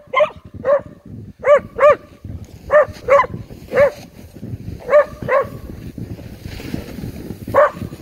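A dog barking repeatedly, about ten short barks, mostly in quick pairs, with a pause of a couple of seconds before the last one. Steady low rumbling noise runs under it.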